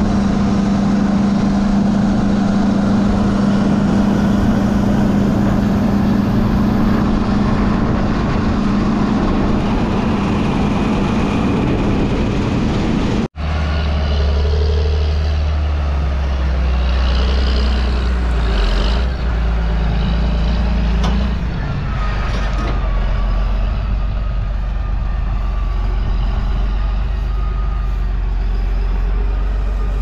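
Heavy farm machinery engines running steadily: first a loud machine hum with a strong steady tone, then after a brief dropout about thirteen seconds in, a deeper, lower engine sound.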